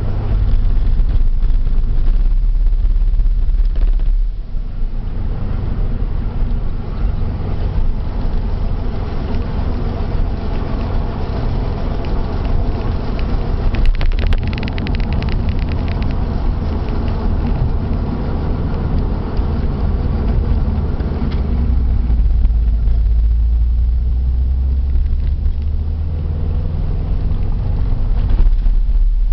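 Subaru Impreza GC8 on the move: a steady low rumble of road and drivetrain noise that swells about three-quarters of the way through. Within it is a faint abnormal noise from a wheel hub bearing, the sign of a failing hub bearing.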